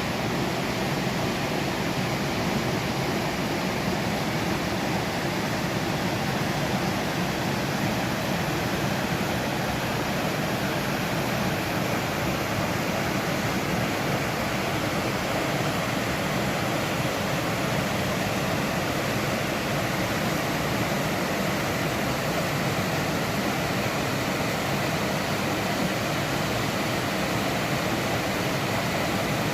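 Steady rushing of a waterfall: an even wash of falling water that keeps up without a break.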